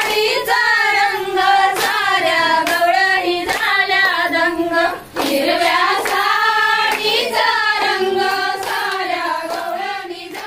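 Group of women and girls singing a traditional Marathi Gauri-Ganpati festival song together, with hand claps keeping time about once a second. The singing fades out near the end.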